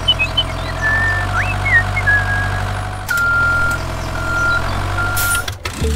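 Tractor engine running steadily, with a reversing beeper sounding three times about halfway through. A few short high chirps in the first two seconds.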